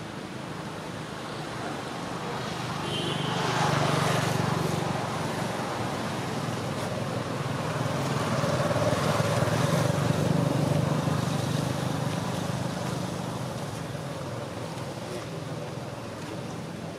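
Engine noise of passing road traffic, swelling to a peak about four seconds in, again more broadly between about eight and eleven seconds, then fading away.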